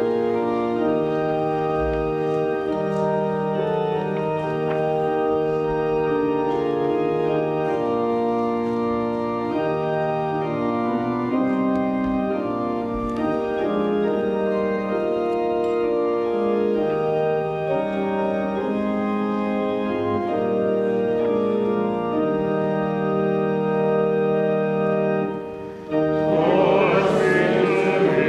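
Church organ playing the hymn tune in sustained chords as the introduction to a hymn. After a short break near the end, the congregation starts singing with the organ.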